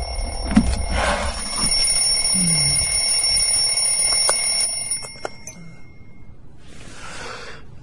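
Alarm clock ringing with a steady high-pitched tone and regular ticks, cutting off about five seconds in. A short burst of noise follows near the end.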